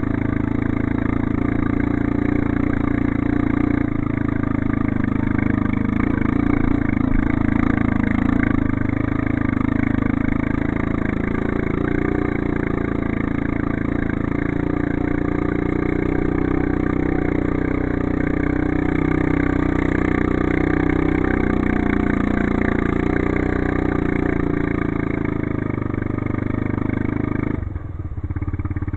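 ATV engine running steadily under way on an off-road ride, its note dropping suddenly about a second before the end.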